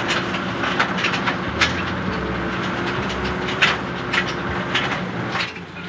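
Military truck driving, its engine running steadily under irregular clanks and rattles from the body.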